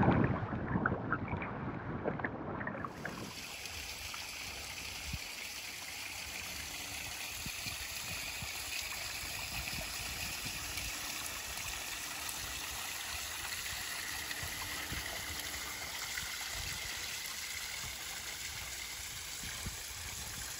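A steady hiss of running water. Wind rumbles on the microphone for the first three seconds or so, then stops abruptly.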